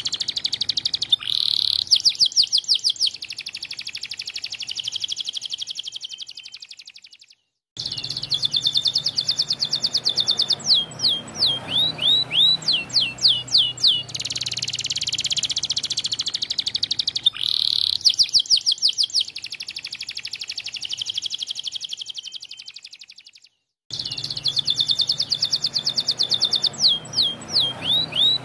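Canary singing long, loud phrases of rapid trills and quickly repeated sweeping notes. The song fades and breaks off twice for a moment before starting again.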